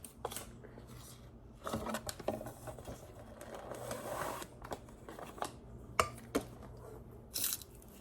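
Cornstarch and lotion being stirred together into cloud dough in a bowl: soft scraping and rustling, with a few sharp taps against the bowl in the second half.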